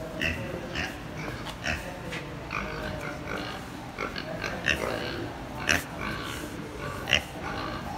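Several pigs making short calls, about one a second, with a few sharper, louder ones in the second half.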